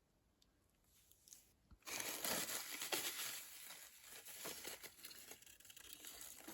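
Packaging crinkling and rustling as it is handled, starting about two seconds in after a silent gap.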